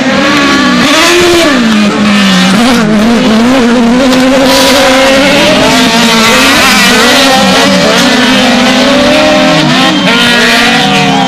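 Several autocross race cars' engines revving hard on a dirt track, overlapping and rising and falling in pitch with throttle and gear changes. The sound is loud and continuous.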